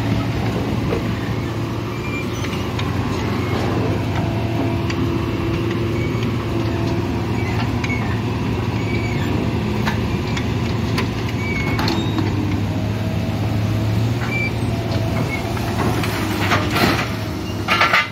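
Heavy machine engine running steadily as a scrapyard grapple material handler carries an SUV, with several loud metal clanks and crunches near the end as the car is set down on the scrap pile.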